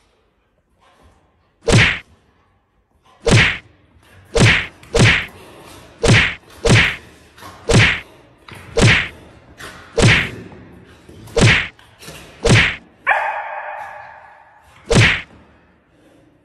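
Tiger cub snarling and spitting at a puppy: about a dozen sharp, loud bursts at irregular intervals. Near the end comes a longer, pitched cry of about a second.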